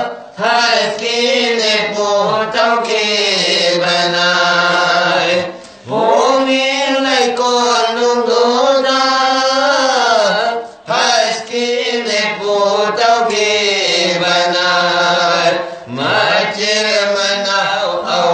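Men singing a Manipuri marifat, a Sufi devotional song, together in long wavering melodic phrases of about five seconds each, with short breaks for breath between them.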